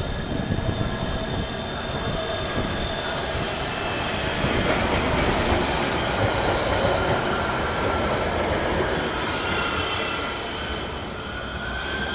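Nottingham street tram passing close by, its rumble loudest about five to seven seconds in, with high, steady wheel-squeal tones over it and one squeal rising in pitch near the end.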